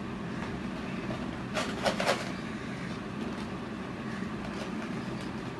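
Tic Tac mints rattling inside a large plastic dispenser box as it is tipped and shaken, a short burst about two seconds in, over a steady low hum.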